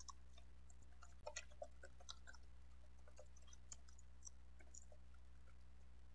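Faint, irregular computer keyboard key clicks from typing, over near silence.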